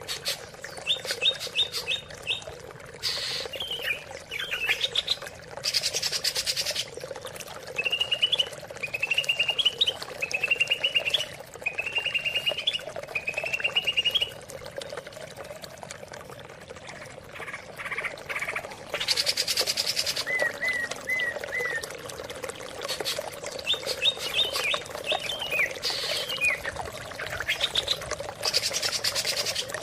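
Cucak ijo (green leafbird) singing: series of quick repeated chirping phrases, several rising in pitch, broken by short harsh buzzy notes, over a steady running-water background.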